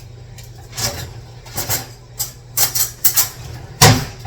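Kitchen utensils clattering while a spoon is fetched: a string of short clinks and knocks, ending in one loud knock near the end.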